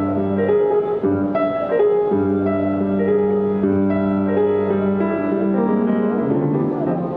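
Live music from a small band, piano to the fore, playing held chords and a melody line.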